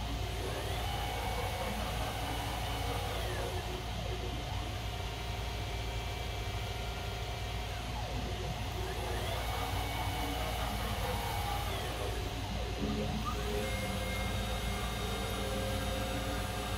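Stepper motors of a CNC mill driving its axes through ball screws, a whine whose pitch glides up as each move speeds up, holds, then glides down as it slows, about three moves in a row over a steady low hum. The motors are NEMA 34 closed-loop steppers.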